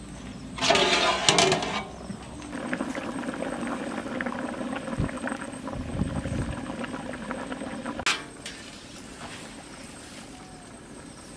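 The metal lid of a large aluminium cooking pot clatters as it is lifted off, then potatoes bubble at a rolling boil in the open pot. The bubbling cuts off suddenly about eight seconds in, leaving quieter outdoor background.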